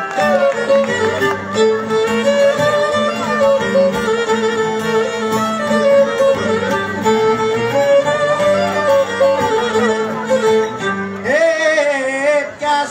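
Violin playing a Cypriot folk melody over a plucked lute accompaniment that holds steady low notes: the instrumental interlude between sung tsiattista verses.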